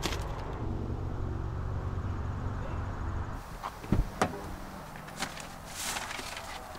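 A car's rear door being opened with a couple of sharp clunks and a click, then a plastic bag rustling as it is set on the back seat. Before that, a steady low rumble.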